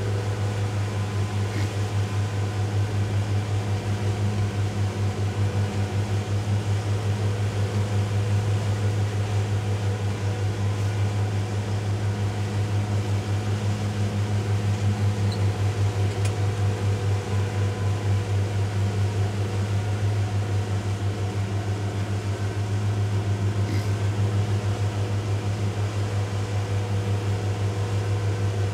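Twin outboard motors of a World Cat catamaran towboat running steadily under load while towing a large yacht, a constant low drone.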